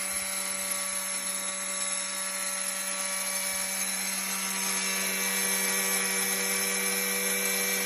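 Xinkai Z2S water tile cutter's 2800 W brushed motor running steadily at speed, a constant whine with no break or change in pitch.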